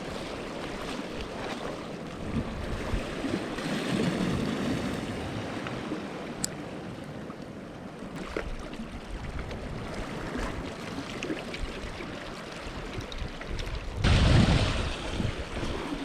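Harbour seawater lapping and sloshing, with wind on the microphone; a louder rush of water and wind about fourteen seconds in.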